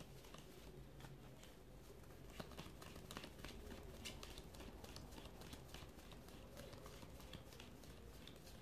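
Near silence: room tone with faint, scattered light clicks and rustles throughout.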